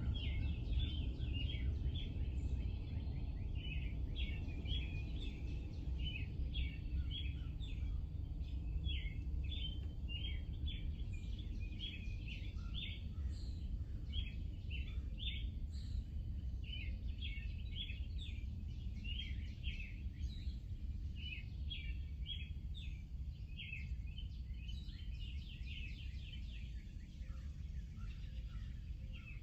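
Many small birds chirping and twittering continuously over a steady low rumble of wind.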